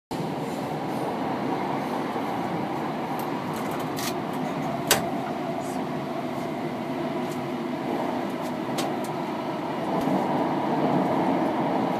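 Gautrain electric multiple unit running at speed through a tunnel, heard from inside the driver's cab: a steady rumble of wheels on rail. A few sharp clicks cut through it, the loudest about five seconds in.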